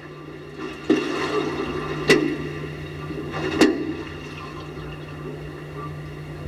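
Seawater sloshing and gushing around a floating space shuttle solid rocket booster after splashdown, picked up by the booster's onboard camera, with three sharp knocks about one, two and three and a half seconds in over a steady low hum.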